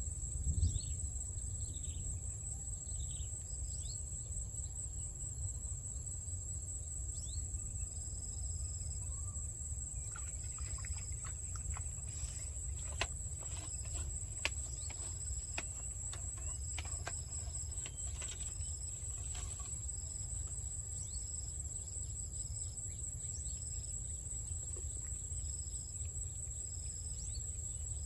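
A steady, high-pitched insect trill that does not let up, with short, higher chirps repeating over it and a low rumble underneath. Faint scattered clicks come through in the middle.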